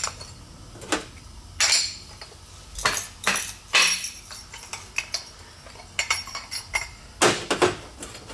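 Irregular metal clinks and knocks of a fork seal driver being slid along a KTM open-chamber fork tube and tapped home to seat the oil seal in the outer tube. There are about ten strikes in uneven groups, the loudest pair coming near the end.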